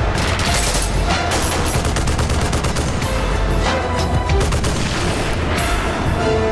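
Rapid gunfire and booms from film action scenes, mixed over loud dramatic music with a heavy low end.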